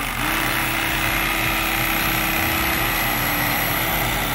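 Electric carving knife running as it cuts through a catfish fillet: a steady motor buzz with a thin high whine that starts just after the beginning and holds steady.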